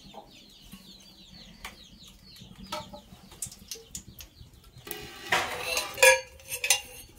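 Light metallic clinks of a small steel oil pot and spoon as groundnut oil is poured into a large metal cooking pot, with chickens clucking in the background. A few louder sounds come between about five and six and a half seconds in.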